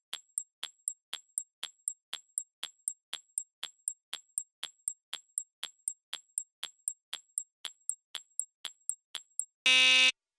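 Countdown-timer sound effect: a clock ticking evenly, about four ticks a second, then a brief loud buzzer-like tone near the end as the time runs out.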